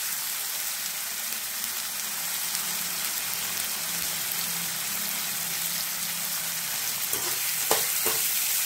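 Chopped onion and tomato sizzling in hot oil in a metal kadai, a steady frying hiss. Near the end, a few short scrapes of a metal slotted ladle stirring the pan.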